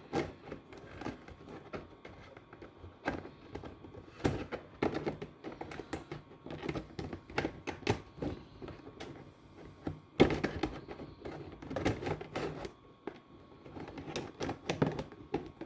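Hard plastic panels of a flat-pack folding shoe-box rack being handled and bent, with irregular clicks and rattles as the tabs are worked into their catches. The sharpest snap comes about ten seconds in.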